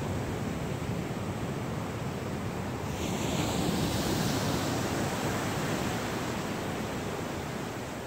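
Ocean surf: waves washing in steadily, with one wave breaking louder about three seconds in and slowly fading.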